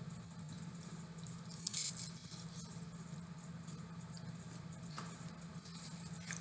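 A person chewing a mouthful of nachos close to the microphone: soft wet chewing and small clicks, with one short louder noisy burst just under two seconds in. A steady low hum runs underneath.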